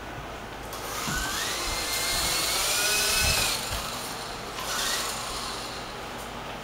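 Small electric motor and rotor of a remote control helicopter whining as the throttle is raised. The pitch rises for about three seconds and then drops away, and there is a shorter burst about five seconds in.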